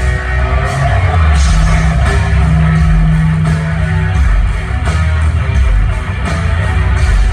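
Live metal band playing loud through a concert PA: distorted electric guitars, heavy bass and drums with a steady beat of cymbal hits.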